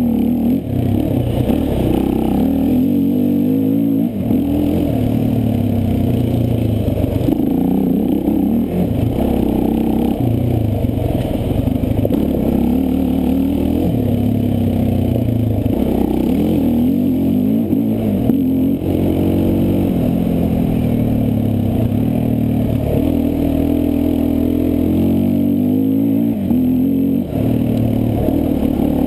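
Quad (ATV) engine revving up and down repeatedly as it is ridden hard over a dirt enduro trail. Its pitch climbs and falls with the throttle, with a few brief dips in level.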